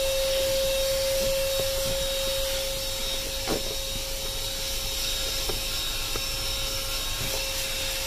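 ThisWorx handheld car vacuum running steadily with an even whining hum as its brush nozzle is worked over a rubber car floor mat. A few faint clicks come through as bits of debris are sucked up.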